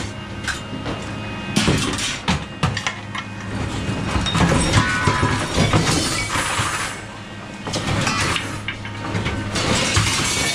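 Scrap metal clanking and clattering in a run of irregular knocks, over a steady low engine hum.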